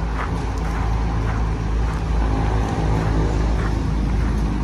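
Steady low drone of vehicle engines running, with a dense low rumble underneath.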